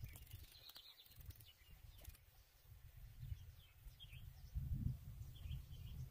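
Faint outdoor ambience: a few short, high bird chirps over a low rumble that swells briefly about four and a half seconds in.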